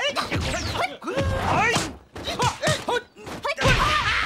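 Hand-to-hand fight sound effects: fighters' short grunts and shouts over punch and kick impacts, with a heavier thump near the end.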